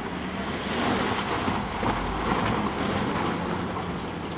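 Volkswagen Tiguan's engine running steadily under load as the SUV slides sideways through a drift on snow, with the hiss of its tyres churning and spraying snow.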